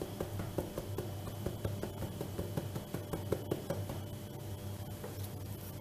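Handheld metal mesh sieve being shaken and tapped to sift flour into a bowl of batter: a quick, irregular run of soft ticks and taps that thins out after about four seconds.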